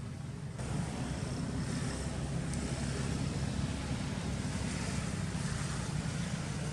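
Steady outdoor background noise: a low rumble with a hiss over it, the hiss growing stronger about half a second in.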